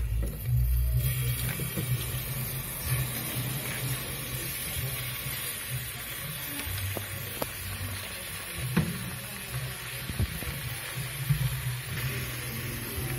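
Ripe jackfruit pieces tipped from a plastic colander into a pot of hot brown-sugar syrup, over a steady low rumble and a faint hiss, with a few soft knocks in the second half.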